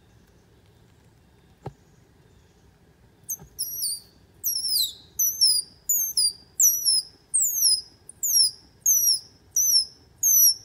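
A single sharp click, then about a dozen loud, high-pitched squeaky calls, each sliding down in pitch, repeated roughly twice a second from a small animal.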